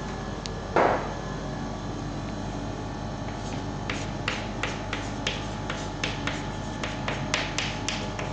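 Chalk writing on a blackboard: a run of short chalk taps and scrapes starts about three and a half seconds in, over a steady electrical hum. A single louder knock comes about a second in.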